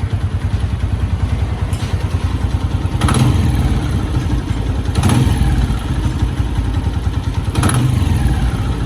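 Honda CG125 motorcycle's single-cylinder four-stroke engine running, with its throttle blipped a few times. It makes a knocking, missing sound that the mechanic ties to the engine running short of petrol.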